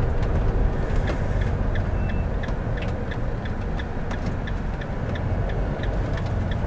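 Motorhome engine and road noise heard from inside the cab while driving slowly: a steady low rumble. From about two seconds in, a light, even ticking runs alongside it, about three ticks a second.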